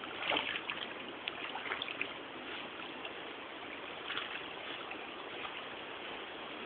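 Steady rush of flowing stream water, with light splashes of a dog moving in the water in the first couple of seconds and again about four seconds in.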